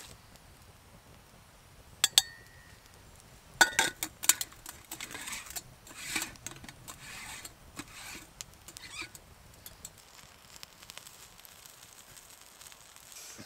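Sharp metal clinks with a short ring as a stainless moka pot is handled and assembled, followed by a run of rasping scrapes as its two halves are screwed together on their threads. Faint crackling of a wood fire near the end.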